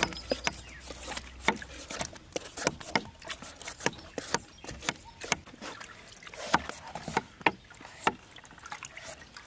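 A run of irregular sharp knocks and clicks, about one or two a second, from hard objects being handled.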